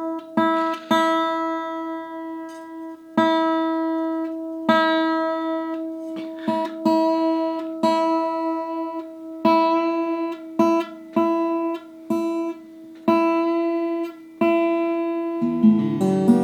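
The high E string of a freshly restrung Fender acoustic-electric guitar, plucked open again and again, about a dozen times, each note left to ring and die away, as its tuning is checked. The new string is settling and already drifting out of tune.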